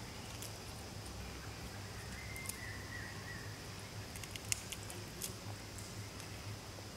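Faint outdoor ambience: a steady high tone over a low hum, with a brief faint high whine about two and a half seconds in and a few light clicks between about four and five and a half seconds.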